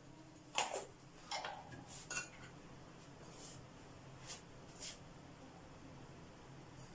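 Faint, scattered clinks and knocks of kitchen utensils and dishes being handled, about seven separate short sounds spread over the first five seconds.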